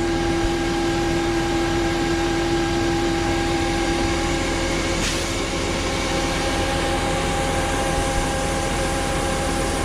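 Bulk feed truck's unloading machinery and engine running steadily, with a constant droning hum, while it conveys pig feed into a silo.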